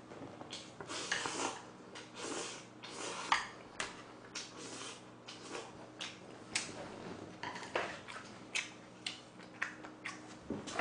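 Close-miked chewing and mouth noises from a person eating, in irregular bursts, with a few sharp clicks of chopsticks against a metal tray.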